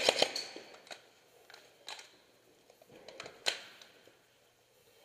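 Sharp clacks and knocks: a quick cluster of several right at the start, then single louder clacks about two and three and a half seconds in, with a few faint ticks between.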